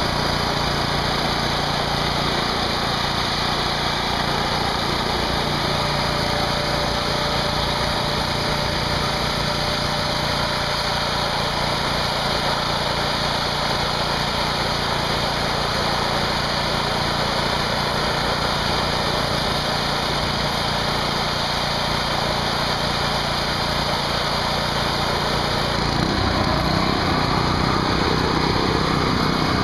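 Small engine of a 2500 psi pressure washer running steadily, with the hiss of the high-pressure water jet spraying onto the turbine disc. The engine's low tone shifts near the end.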